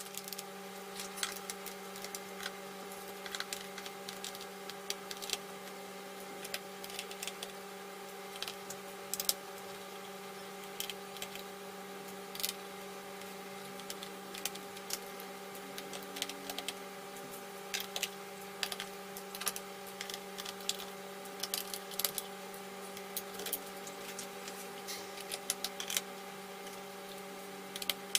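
Irregular light clicks and taps of a laptop's plastic case and screws being handled and worked on during disassembly, over a steady low electrical hum.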